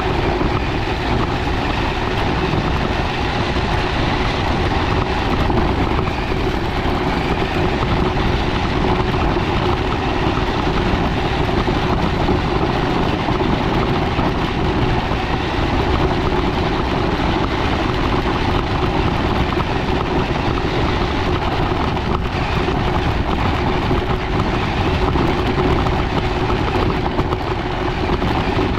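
Radio-controlled scale UTV driving steadily over a leaf-covered dirt trail, heard up close from a camera on board: a steady motor and gear whine over continuous tyre and chassis noise.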